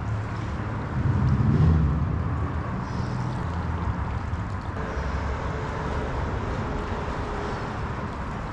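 Rushing water of a flooded, fast-flowing river, a steady wash with a low rumble that swells briefly about a second in.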